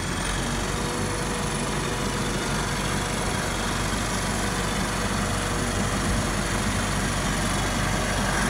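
Ford 7740 tractor's diesel engine running steadily as the tractor drives closer, growing slightly louder toward the end.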